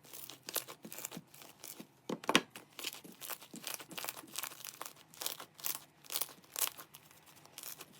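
Slime being squeezed and stretched by hand, making irregular sticky crackles and pops, several a second, the loudest about two seconds in.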